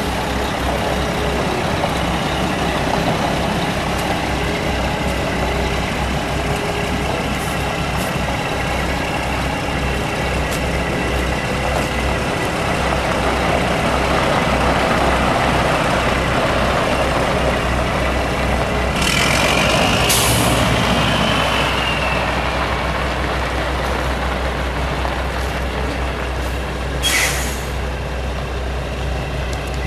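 A 2001 Mack CX613 semi truck's Mack E7 12-litre straight-six turbo diesel running steadily. About two-thirds of the way through, air hisses out of the air brakes for a second or two, and a shorter air hiss comes near the end.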